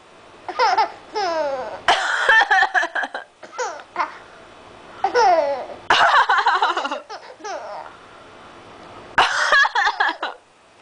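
A baby laughing in several high-pitched bursts, the laughs answering coughs. Three sharp coughs, about two, six and nine seconds in, each set off a fresh burst of laughter.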